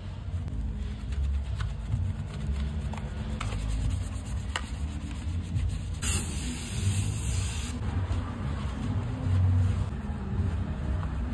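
Soft brushes scrubbing soapy foam over a motorcycle helmet shell and liner, with a steady low hum underneath. About six seconds in, a jet from a pressure steamer hisses onto the shell for a second and a half, then cuts off.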